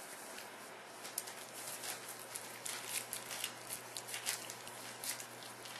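A puppy eating meat off a paper plate: quick, wet smacking and chewing clicks, thickest through the middle.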